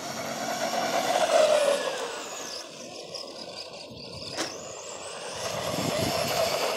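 Arrma Granite 4x4 RC truck running on asphalt under its 3900 KV brushless motor: a high motor and gear whine that rises and falls with the throttle over tyre noise, swelling twice. A single sharp click about four and a half seconds in.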